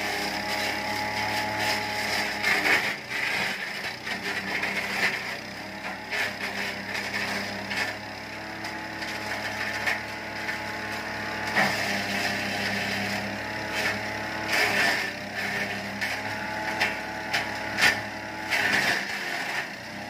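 Wood chipper-shredder with a 7 HP petrol four-stroke engine running steadily while branches are fed in, the blades chipping the wood in repeated crackling bursts. The engine note shifts a few times as the branches load it.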